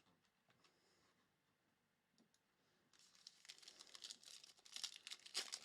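A few faint clicks, then from about three seconds in a trading-card pack's foil wrapper crinkling and tearing as it is ripped open.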